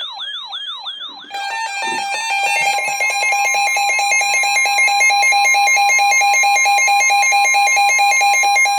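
Emergency Alert System alert tones: about a second of rapidly repeating sweeping warble, then the harsh, steady two-tone EAS attention signal, loud and unbroken for the rest of the stretch.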